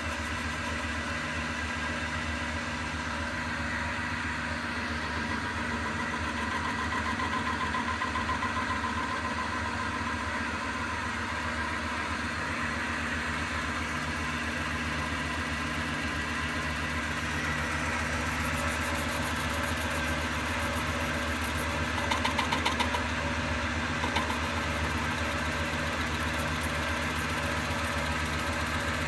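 Eureka E65 espresso grinder's motor running steadily with Mazzer Super Jolly burrs fitted, a constant hum with a higher whine over it. There is a short, slightly louder rough patch about 22 seconds in.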